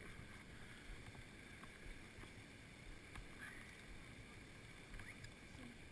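Near silence: a faint low rumble and hiss, with a few small faint clicks.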